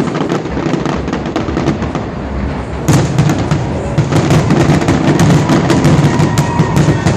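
Fireworks going off in a dense, rapid barrage of bangs and crackles. It jumps louder about three seconds in and stays thick with reports. A thin whistling tone comes in near the end.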